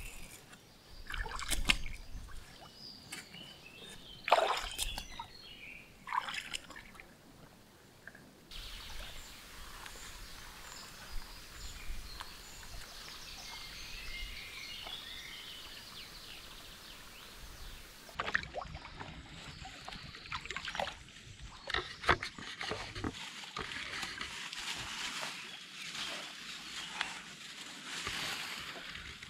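Shallow lake water splashing and sloshing as a foam-raft floating photo hide is pushed out from the shore, with small birds chirping. Later comes close sloshing of water with clicks and knocks against the raft and its camouflage netting.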